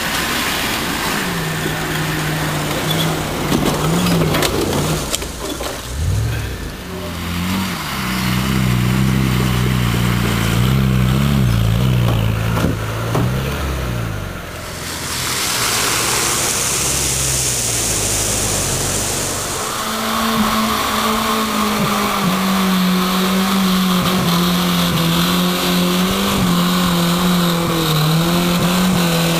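Off-road 4x4 engines revving under load as the vehicles crawl and climb over rough ground, the pitch rising and falling repeatedly. About halfway through, a few seconds of steady hiss, then a steadier engine note with small changes in pitch.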